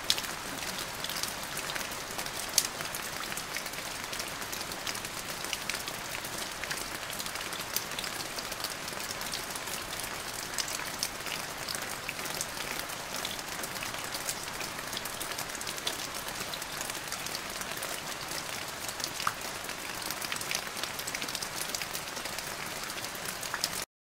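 Steady rain: a dense hiss scattered with many small drop ticks. It begins abruptly at the outset and cuts off suddenly near the end.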